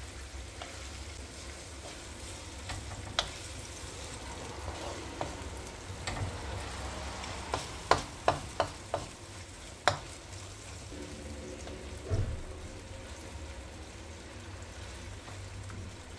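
Diced chicken, green peppers and tomato purée sizzling in a wide nonstick pan while a wooden spoon stirs them. The spoon scrapes and knocks against the pan now and then, with a quick run of sharp knocks about eight to ten seconds in.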